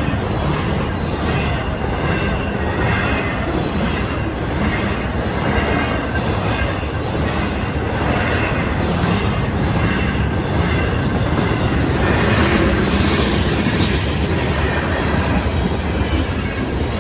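Freight train cars rolling steadily past close by: a continuous rumble of steel wheels on rail with clattering over the joints and some high wheel squeal.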